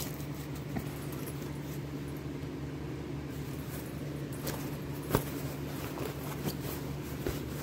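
Handling noise of a quilted fabric backpack being turned over: soft rustling and a few small clicks, the sharpest about five seconds in, over a steady low hum.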